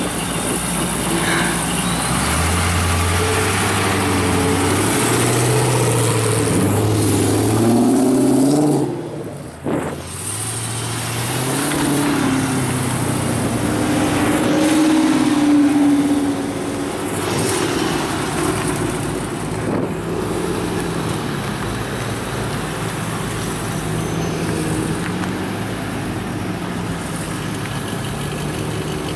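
V8 muscle car engines revving and accelerating away one after another, the engine note climbing for several seconds and dropping suddenly about nine seconds in. The notes climb again a few seconds later, then settle into steady idling and slow running.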